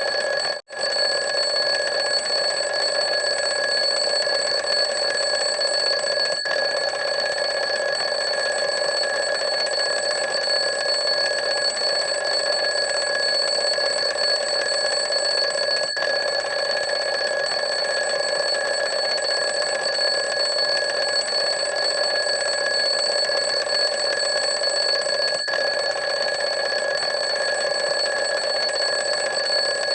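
Alarm clock ringing without pause, one steady unchanging ring, cut off for a split second about half a second in.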